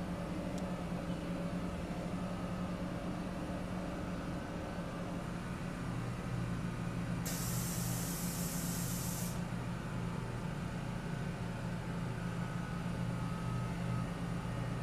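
Steady hum of compressed-air plant machinery, with a second, lower hum joining about six seconds in. About seven seconds in, compressed air vents in a hiss lasting about two seconds, which starts and stops abruptly.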